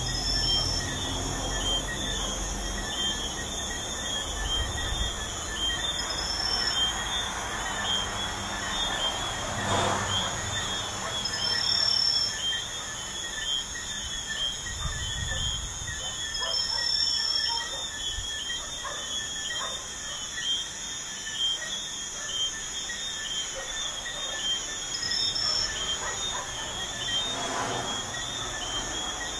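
Crickets and other night insects chirping in a dense, steady chorus, with a higher trill breaking in briefly every few seconds, over the constant low rumble of highway traffic. A passing vehicle swells up and fades about ten seconds in and again near the end.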